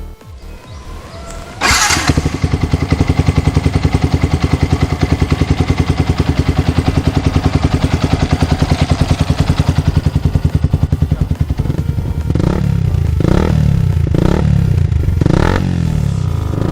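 Yamaha FZ150i single-cylinder four-stroke engine breathing through an AHM M1 aftermarket exhaust: it starts up about two seconds in and idles with an even, rapid pulse. Near the end the throttle is blipped several times in quick succession, the revs rising and falling with each one.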